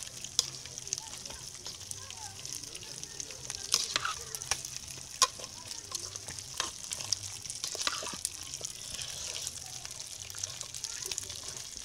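Vegetables and leafy greens sizzling in oil in an aluminium pot, a steady frying hiss, while a metal spoon stirs them, clinking and scraping against the pot in scattered sharp clicks.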